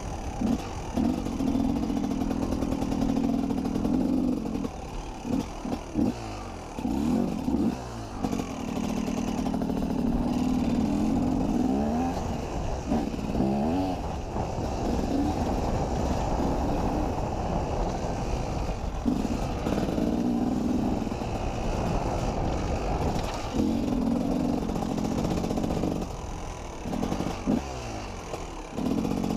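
KTM 250 EXC two-stroke enduro motorcycle engine under way at steady throttle, with a few short bursts where the revs climb and drop again, a couple early on, once around the middle and once near the end.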